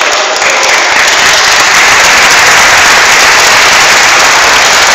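Crowd applauding: steady, dense clapping that grows fuller under a second in and keeps on.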